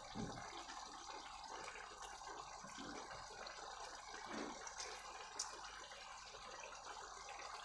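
Faint drips and small wet sounds as fresh lemon juice is squeezed by hand into a pan of chicken curry gravy.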